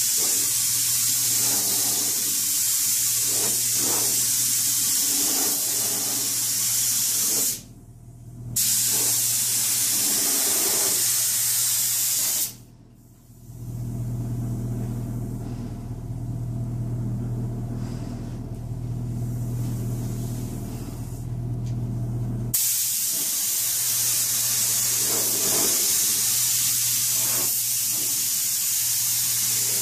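Gravity-feed compressed-air paint spray gun hissing as it sprays paint onto tractor sheet metal. The spray cuts off briefly twice, about 8 and 13 seconds in, runs softer through the middle and is strong again from about 22 seconds. A steady low hum runs underneath.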